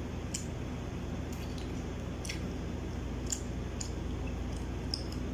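Quiet eating sounds: chewing and mouth noise with scattered faint clicks, roughly one a second, over a steady low room hum.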